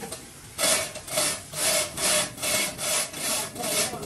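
Rhythmic rasping strokes of a hand tool worked back and forth, about two and a half a second, starting about half a second in.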